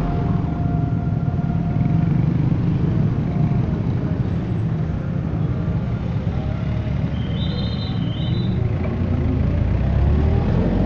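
Road traffic passing close by at a busy intersection: motorcycle and minivan engines running and moving off, a steady rumble. A couple of brief high-pitched tones sound about seven seconds in.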